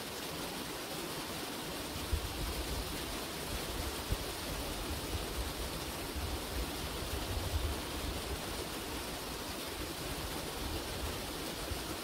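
Water pouring over a small concrete spillway into a creek pool: a steady, even rushing. Irregular low rumbles come and go beneath it from about two seconds in.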